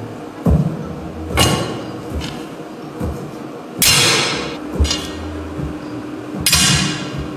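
Foley digging: a spade driven into a tray of soil, hay and gravel, with rubber boots stepping in it. Three gritty crunches of the blade, about a second and a half in, near the middle (the longest and loudest) and near the end, with duller thumps between.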